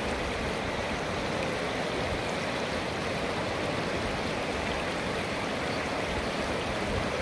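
River rapids rushing steadily over a rocky, shallow riverbed.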